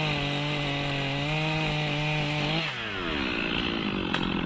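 Chainsaw at full throttle cutting down through a log toward the hinge, its engine note steady. About two and a half seconds in, the throttle is released and the engine winds down toward idle.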